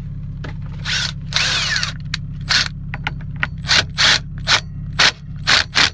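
Hand ratchet wrench tightening the bolts of an aftermarket quick-release steering wheel hub: a series of short ratcheting strokes, coming quicker toward the end, over a steady low hum.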